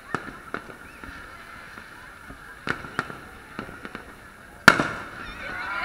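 Fireworks going off over a beach crowd: scattered sharp bangs, with one much louder boom about four and a half seconds in, over the murmur of the crowd. The crowd noise starts swelling near the end.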